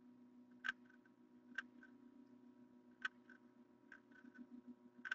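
Near silence: a faint steady hum with five faint sharp clicks spaced unevenly about a second apart, each followed by a softer tick.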